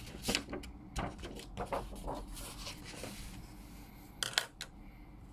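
A sheet of paper being handled and rustled, with scattered short taps and clicks, a longer rustle about two to three seconds in and two sharp clicks close together a little after four seconds.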